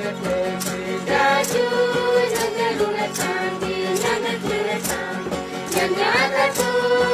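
A song sung in Guaraní by a group of voices holding long notes, over a steady beat of about two strokes a second.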